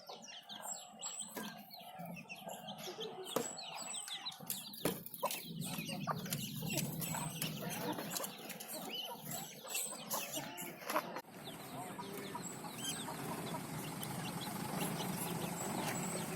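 Kampung chickens clucking in short, repeated calls. About two-thirds of the way in, the clucks give way to a steadier background hiss.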